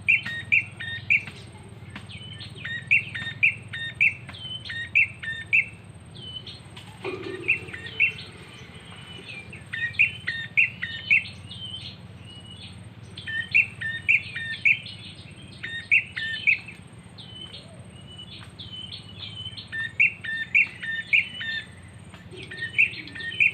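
Prinia-style call: short phrases of three to five sharp, evenly spaced chirping notes, about four a second, repeated in bursts every few seconds. A steady low hum runs underneath.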